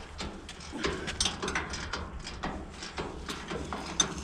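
Irregular metallic clicks and clunks from a homemade splined driveshaft joint being turned by hand, with play in the splines.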